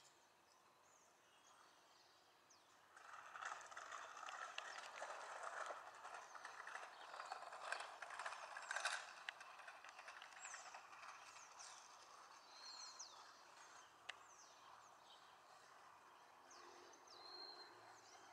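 Faint outdoor ambience. A soft rustling, crackling noise with many small clicks runs from about three to ten seconds in, then gives way to scattered short bird chirps and brief whistles.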